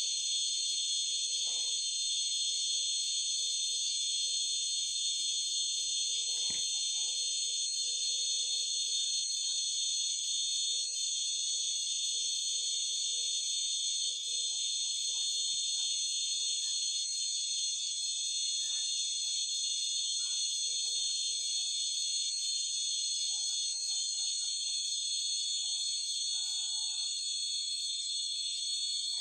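A dense insect chorus: a steady, high-pitched chirring that never lets up, with faint short calls scattered lower down.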